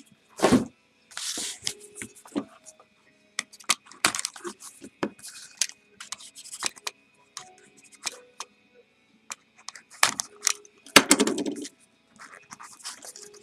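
A small cardboard trading-card box being handled and slit open with a small blade: scattered clicks, scrapes and rustles of cardboard and packaging. A louder scraping rustle comes about eleven seconds in.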